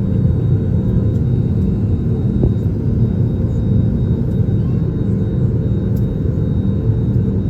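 Steady low rumble of an airliner's engines and airflow heard inside the passenger cabin.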